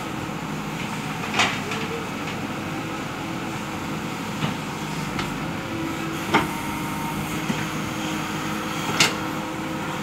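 JCB 3DX backhoe loader's diesel engine running steadily as the backhoe digs, with four short sharp knocks spread through it.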